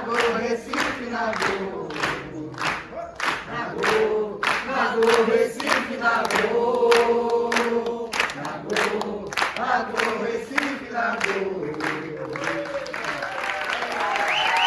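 Group of voices singing together over a steady, sharp percussive beat of about three strikes a second. The beat stops about twelve seconds in, and the singing trails off into cheering.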